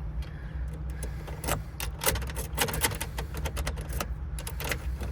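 Metal keys clicking and jingling as a newly cut key is jiggled in the ignition lock, a rapid run of small rattles over a steady low hum. The key won't turn: its first cut position was never cut.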